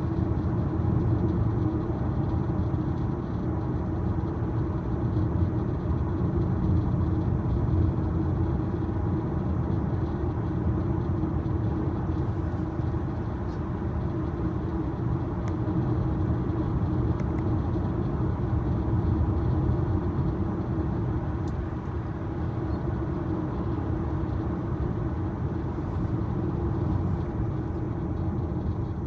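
Steady road and tyre noise inside the cabin of a 2023 Tesla Model Y electric car driving along the road, a low even rumble with no engine sound.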